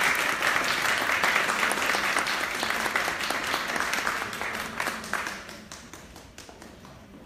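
Audience applauding, a dense patter of clapping that thins out about five seconds in to a few scattered claps.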